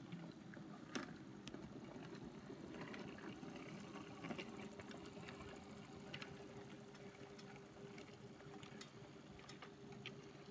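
HO scale AHM/Rivarossi dockside switcher locomotive running slowly: a faint, steady hum from its small electric motor and gears, with scattered light clicks. It is freshly serviced and running quietly and smoothly.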